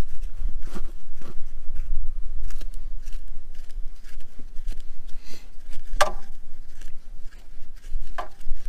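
Hand wrench working a rusty brake caliper slide-bracket bolt: scattered light metal clicks and scrapes, with a sharper clink about six seconds in and another near the end, over a steady low rumble.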